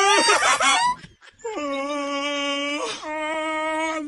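A wailing cry: a short warbling cry ends about a second in, then two long cries are held on one steady pitch, the second after a brief break.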